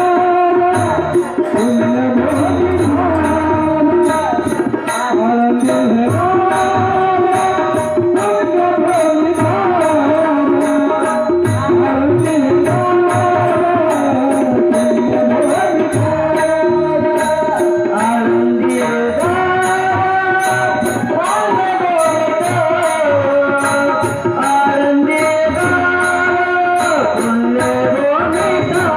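Marathi abhang (devotional bhajan) music: a hand drum in the tabla style keeps the rhythm under a bending melody line, with high metallic ticks in a fast, even beat.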